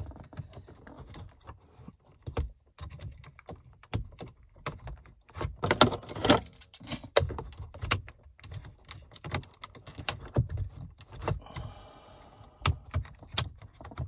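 Irregular clicks, knocks and rattles of hard plastic as a BMW start/stop button is worked and pried out of its retaining clips in the dashboard trim. The clicking is busiest and loudest around six seconds in.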